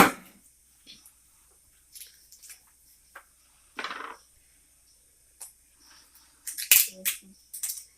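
Kitchen handling noises while measuring spices with a spoon: a sharp click at the start, then scattered taps and knocks of a spoon against jars and a bowl, with a short rustling scrape about four seconds in and a quick run of clicks near the end.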